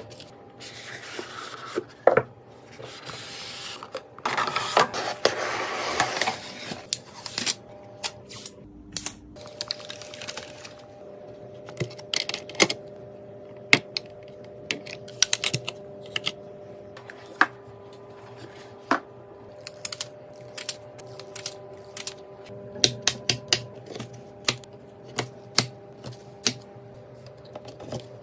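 Computer parts and their packaging being handled: scattered sharp clicks and taps, with stretches of rustling early on, over a faint steady hum.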